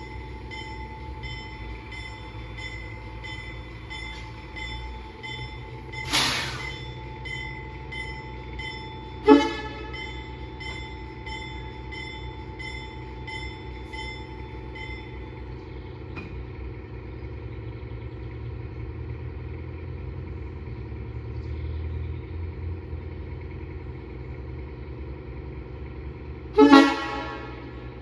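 A train's bell clangs steadily, about two strikes a second, for roughly the first fifteen seconds. A diesel locomotive's horn gives short toots about nine seconds in and near the end, with a louder sudden blast about six seconds in. A low engine rumble runs underneath.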